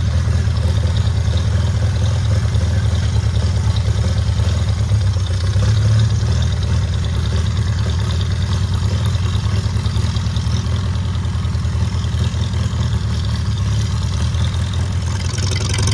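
Farmall A tractor's four-cylinder gasoline engine running steadily.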